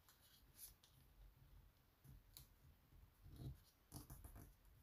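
Very faint rustles and a few soft clicks of a sheet of colored origami paper being folded, its corners pressed down and creased flat by fingers on a tabletop.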